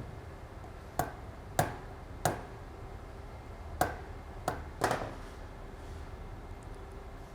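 About six sharp knocks and clicks at uneven intervals, with a pause in the middle, as metal parts and hand tools of a circular saw are handled during reassembly.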